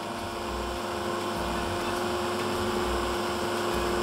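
Electric mini chopper running steadily with one held pitch as it whips whipped cream, cream cheese and powdered sugar into a smooth mix.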